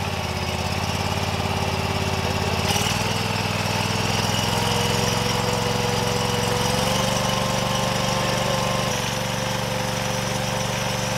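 Barreto stand-on track trencher's engine running steadily. Its pitch steps up slightly just under three seconds in, then holds.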